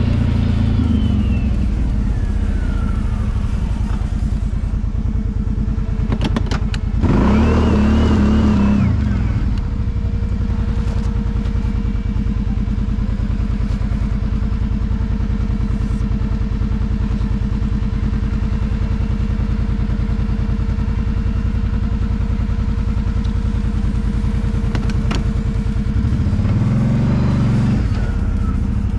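Kawasaki Brute Force 750 ATV's V-twin engine running steadily on the trail, revving up and back down briefly about seven seconds in and again near the end.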